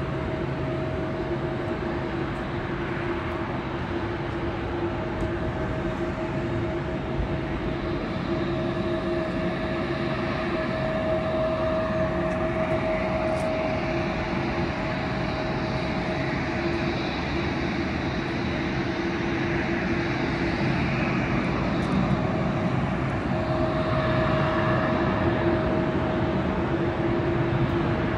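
Jet airliner engine noise: a steady rushing sound with a constant hum under it, slightly louder in the second half.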